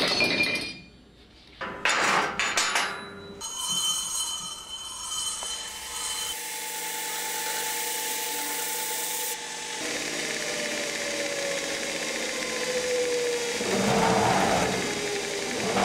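Metal workshop sounds: sharp hammer blows on metal in the first few seconds, then a belt grinder running with a steady hiss and whine, its tone slowly falling later on. Two louder scraping bursts come near the end.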